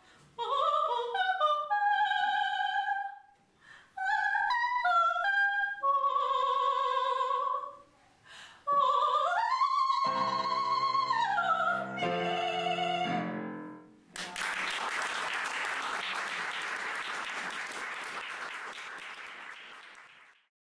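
Solo soprano singing in operatic style with piano accompaniment, in phrases that climb to a high held note about ten seconds in, followed by closing piano chords. From about fourteen seconds in, applause, fading away near the end.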